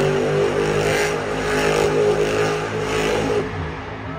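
Monster truck engine running hard at high revs as the truck drives across a dirt arena. The engine note holds fairly steady, then eases off a little past three seconds in.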